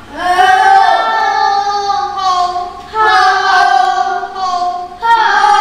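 A high woman's voice singing in long drawn-out notes: three held phrases of about two seconds each, each at a steady pitch.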